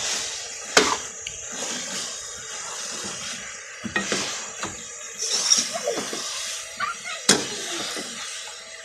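Metal spoon stirring and scraping a chicken and moringa mixture in an aluminium pan, with three sharp clanks of the spoon against the pan over a faint steady hiss.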